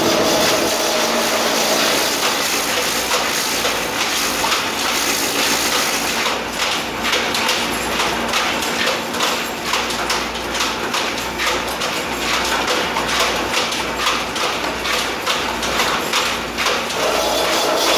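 Belt-driven sisal decorticating machine running: a loud, continuous mechanical clatter with a steady hum and many rapid knocks as it strips the leaves into fibre.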